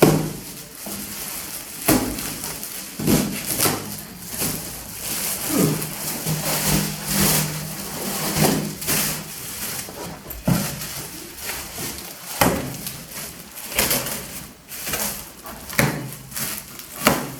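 Knife cutting and tearing open a woven plastic sack wrapped around a heavy shipped package: irregular rasping, rustling and scraping, with sharp knocks now and then.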